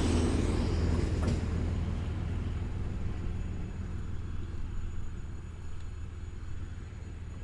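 AČ2 diesel railcar moving away after passing: its low rumble and wheel noise fade steadily.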